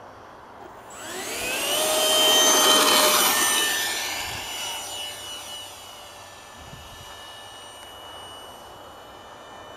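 Electric ducted fan of an Art-Tech F-18 RC jet running up with a rising whine about a second in, loudest over the next couple of seconds during the takeoff run, then falling slightly in pitch and settling to a steadier, fainter whine as the jet climbs away.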